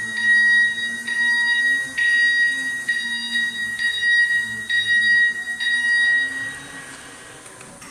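Forklift warning beeper sounding a steady, high-pitched beep about once a second, with a low hum underneath. The beeping stops about six and a half seconds in.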